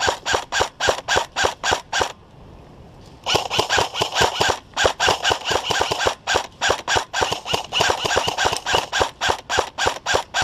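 Airsoft electric rifles firing rapid shots, about five to seven a second, in two strings with a short pause about two seconds in.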